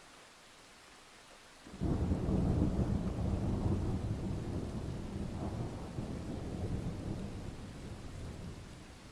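A thunderclap breaks in suddenly about two seconds in and rolls on as a deep rumble. It swells again midway and slowly fades, over the hiss of rain.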